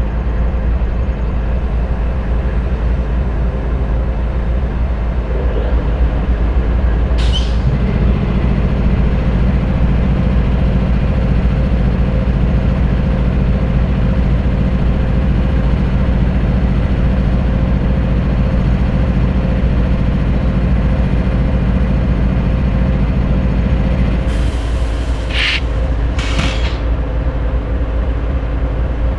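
Canadian Pacific GE diesel locomotives, an ES44AC leading, idling at a standstill with a steady low engine rumble that thickens about eight seconds in. Short hisses of air come about seven seconds in and twice near the end.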